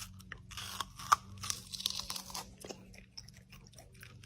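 Crunchy food being bitten and chewed close up: irregular crunches, one sharper crack about a second in.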